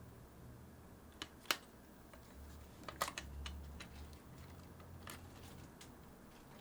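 Scattered small clicks and taps of parts and tools being handled while a Sony HVR-DR60 hard-disk recorder's main block and HDD case are taken apart. The loudest click comes about a second and a half in, with a quick cluster of clicks around three seconds, over a faint low hum.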